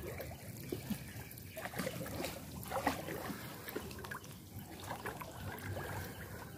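Shallow water trickling and sloshing, with irregular small splashes, as people wade and grope by hand for fish.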